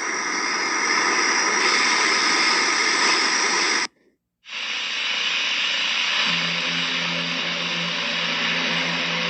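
Harsh static hiss that cuts out to silence for about half a second about four seconds in, then resumes. A low steady hum of two tones joins the static about six seconds in.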